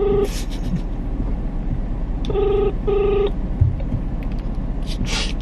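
Phone ringback tone on speaker while a call goes unanswered: a double ring, two short beeps close together, repeating about every three seconds. The end of one pair sounds right at the start and a full pair comes about two and a half seconds in.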